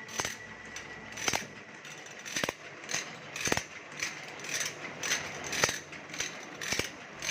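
Teeth of a wood saw blade being sharpened with a metal file: short, sharp scraping strokes repeating about one to two a second.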